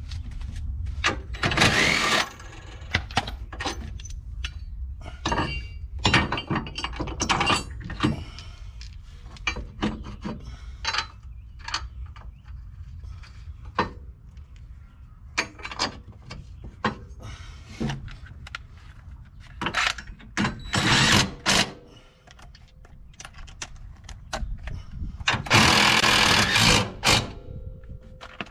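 Hand tools clicking and clanking on metal parts, with a few short bursts of a power tool, the longest near the end, over a steady low rumble.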